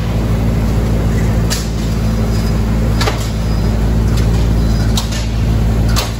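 A machine or engine running steadily with a low hum, with sharp clicks or knocks every second or so.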